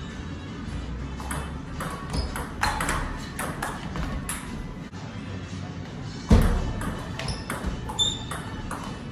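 Table tennis ball clicking off rackets and the table during a rally, a quick, irregular string of sharp ticks, with one heavy thump a little past the middle.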